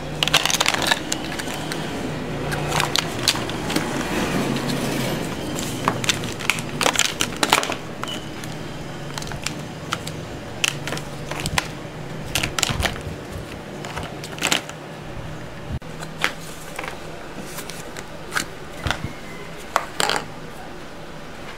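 Hard plastic play-dough mold trays and cookie cutters clicking and clattering as they are handled and set down, in irregular sharp knocks.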